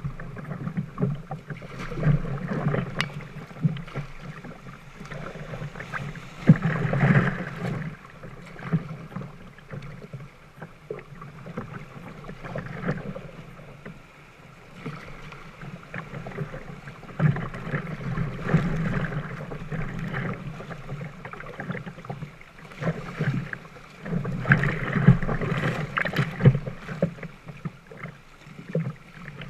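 Kayak being paddled down a river: water splashing and lapping at the hull, with paddle strokes and small knocks, louder in uneven swells.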